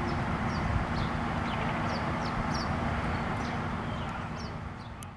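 Steady low hum of an idling truck engine, with small birds giving repeated short high chirps over it. The sound fades out near the end.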